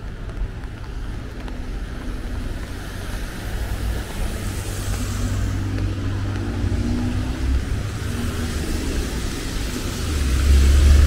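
Street traffic on a wet road: a vehicle engine with tyres hissing on the wet surface, over a low wind rumble on the microphone that swells near the end.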